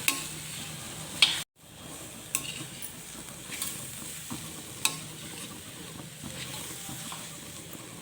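A spatula stirring a thick date-and-raisin paste mixed with chopped dry fruits as it fries in ghee in a kadhai, with a soft steady sizzle and sharp clicks every second or so as the spatula strikes the pan. The sound cuts out completely for a moment about one and a half seconds in.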